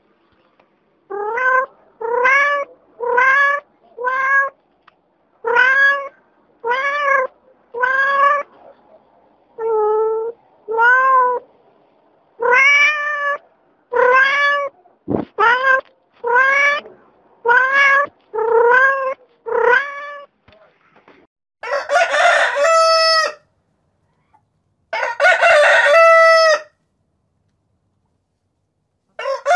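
A run of about sixteen short animal calls, roughly one a second, each rising then falling in pitch. A few seconds after they stop, a rooster crows twice in long, drawn-out crows, and a third crow starts at the very end.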